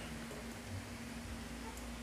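Quiet room tone with a steady low hum and faint hiss.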